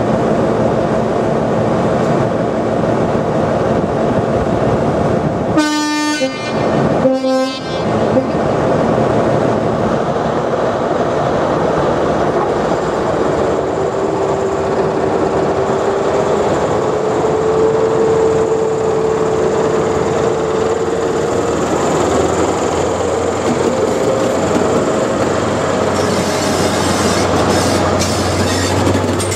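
HST Class 43 diesel power car running, then sounding two blasts on its horn, the second a little lower. Its engine note rises as it pulls away, and near the end its wheels click over the rail joints as it passes close by.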